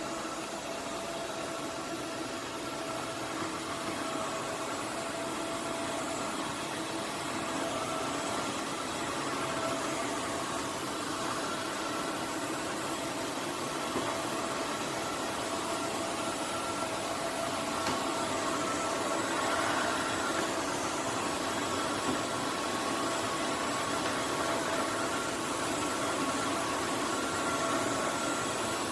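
Roborock F25 RT wet-dry vacuum running in its base during the self-cleaning cycle: a steady motor whine with a few fixed tones over an even hiss, unchanging throughout.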